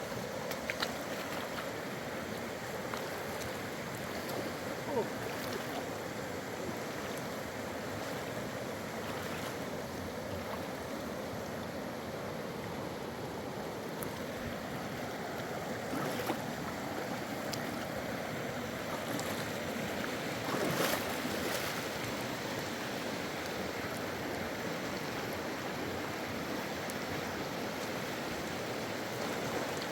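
Steady rushing of water, with a few faint clicks and knocks scattered through it.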